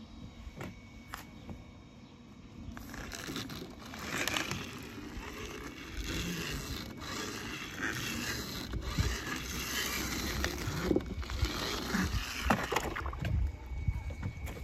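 Toy cars scraping and crackling over rough, rocky ground, with scattered small clicks and knocks. It grows louder about three seconds in.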